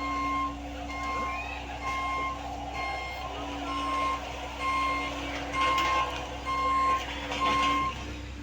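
Reversing alarm of a heavy construction machine (bulldozer or road roller) beeping at an even pace over its steady running diesel engine, the beeps getting louder in the second half and stopping shortly before the end.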